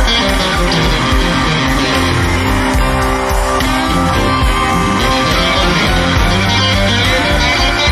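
Live blues-rock band playing, with electric guitars (a black Fender Stratocaster among them), bass and drums going steadily.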